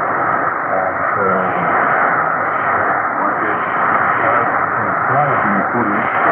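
Weak shortwave AM signal on 6275 kHz through a Belka-DX receiver: a steady dense hiss of band noise, with the station's programme faintly audible beneath it.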